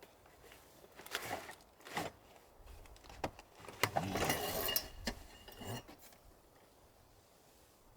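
Objects being handled: a few light knocks in the first two seconds, then a longer scraping rub about four seconds in with a brief high ring, and a last knock near six seconds.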